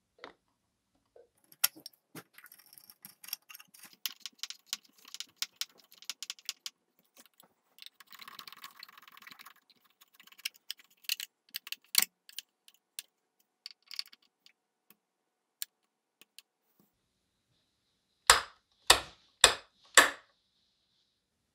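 Small metal parts clinking and rattling as they are handled, with a short scrape partway through, then four sharp strikes about half a second apart near the end.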